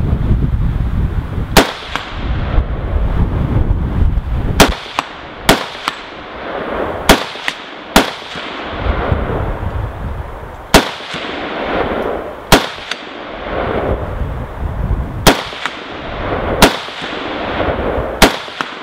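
AR-15 rifle firing single shots at steel targets, about a dozen shots spaced unevenly one to three seconds apart. Several shots are followed a fraction of a second later by a fainter sharp crack.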